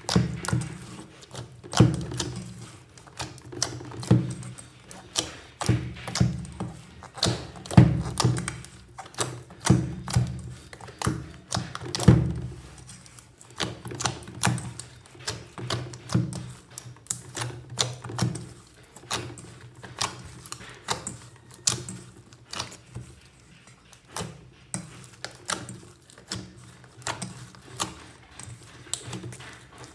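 Slime being squished and worked by hand, giving many quick clicks and pops, over electronic background music.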